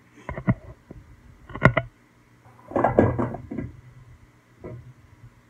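A few sharp knocks and clicks of hands handling a stand mixer. The loudest knock comes about one and a half seconds in, followed by a short clatter about three seconds in.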